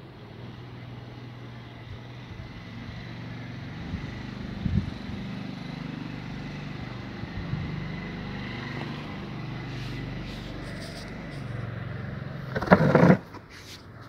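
Low hum of a motor vehicle engine running nearby, slowly growing louder. Near the end, a brief loud rough noise.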